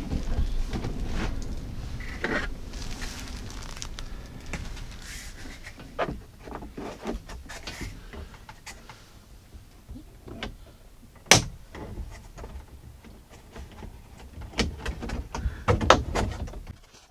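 Plastic parts of a Remis windscreen cab blind's top rail being handled and pushed into place at the cab ceiling: scattered clicks and knocks, with one sharp click about eleven seconds in and a cluster of knocks near the end.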